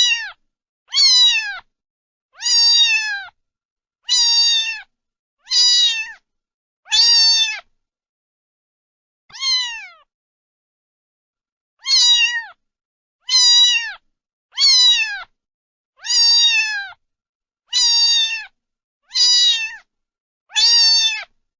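Domestic cat meowing over and over, about one loud meow every second and a half, each ending with a falling pitch, with a longer pause about halfway through.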